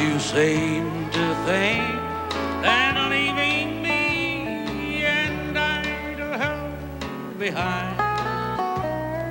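Instrumental break of a country ballad: a lead melody that slides and bends between notes over a strummed flat-top acoustic guitar and steady bass notes.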